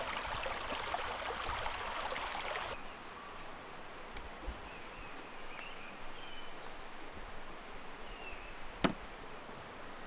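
A dense rushing, crackling noise for about the first three seconds, cutting off suddenly. Then quieter outdoor ambience with a few bird chirps and one sharp knock near the end.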